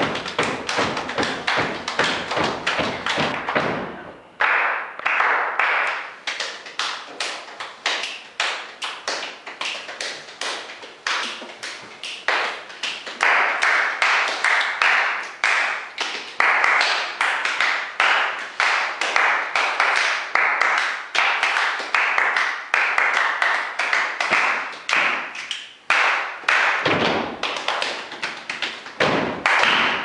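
Body percussion by a quartet of players: rapid rhythmic hand slaps on chests and thighs with hand claps, several strikes a second. About four seconds in the deep chest and thigh thumps drop away and the pattern becomes sharper, higher slaps and claps.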